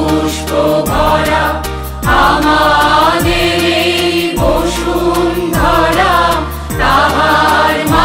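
Background music: a sung melody over a sustained drone, with a low drum stroke that drops in pitch about once a second and a steady ticking beat.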